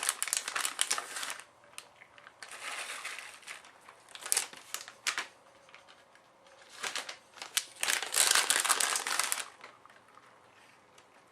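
Plastic packaging crinkling in handled bursts, stopping and starting several times, as shredded cheese is added; the longest burst comes a little past the middle.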